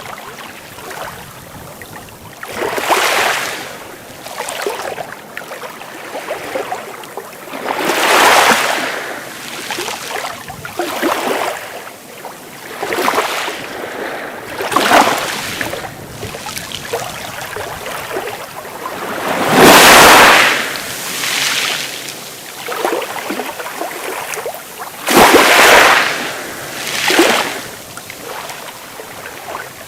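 Sea waves breaking and washing in, one swell every few seconds over a steady background wash, the biggest two coming about two-thirds of the way through.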